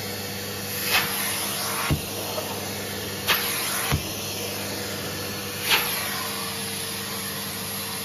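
Numatic Henry Xtra HVX200-22 cylinder vacuum running steadily with its suction relief valve open, its upholstery tool being worked over sofa fabric. The motor hums evenly, broken by five short bursts of noise as the nozzle moves across the cushion.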